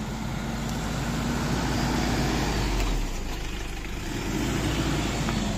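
Toyota Fortuner engine revving hard under load as the SUV attempts an off-road climb. The revs hold for about three seconds, ease off, then rise again near the end.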